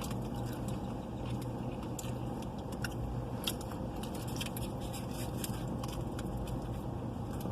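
Close-up mouth sounds of someone eating a burrito: chewing, with many small scattered clicks and crackles. A steady low hum lies underneath.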